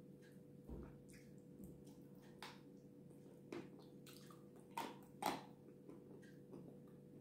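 Soft, wet mouth sounds of eating a white cream-like paste off the fingers: scattered small smacks and squishes, two louder ones around the middle, over a faint steady hum.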